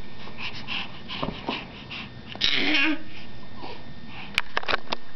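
A baby's breathy, excited vocalising: panting breaths, then a short breathy voiced squeal about halfway through. A few sharp clicks follow near the end.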